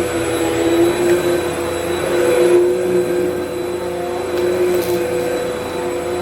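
Vacmaster UC0101 bagless upright vacuum running steadily: a motor whine in two steady tones over the rush of air, with the upper hiss dipping for a moment in the middle.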